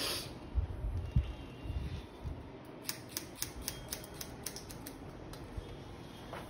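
Hairdressing scissors snipping through a wet, finger-held section of hair, a quick run of about ten sharp snips from about three to five seconds in.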